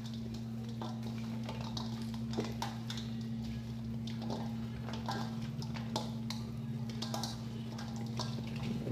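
Hands kneading chopped goat meat in a wet marinade in a stainless steel bowl: irregular squishing with light knocks of meat against the bowl, over a steady low hum.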